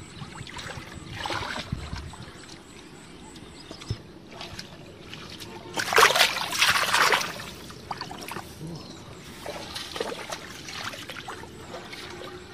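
Shallow muddy water splashing and sloshing as hands grope through it, with one loud splash lasting about a second, roughly six seconds in. Feet splash through the shallow water near the end.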